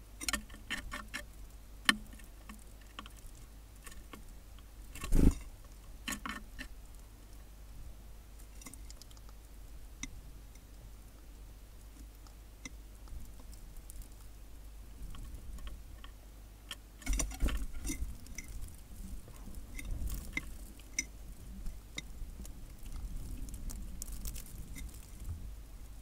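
Small birds, a Eurasian tree sparrow and a Daurian redstart, pecking at seed in a feeding tray and hopping on a wooden feeder: scattered light taps and clicks, with a louder thump about five seconds in and another cluster of taps about seventeen seconds in.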